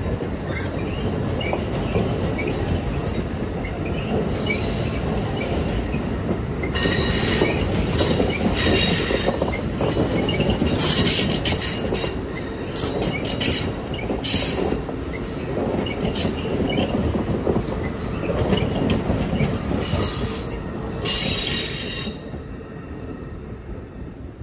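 Amtrak Silver Meteor passenger cars rolling past on curved track: a steady rumble of steel wheels on rail, with repeated high-pitched wheel squeals from about seven seconds in. The sound drops off sharply near the end as the last car clears.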